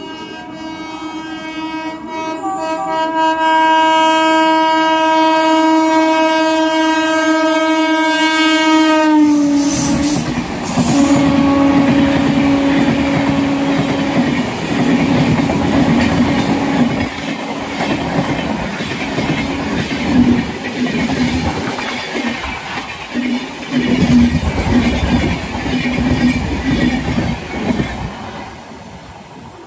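Express train with an electric locomotive passing at about 100 km/h: the locomotive horn sounds one long blast that drops in pitch as the engine goes by, about nine seconds in. The coaches then rush past with a steady rattle and clatter of wheels over the rails, the horn sounding again briefly.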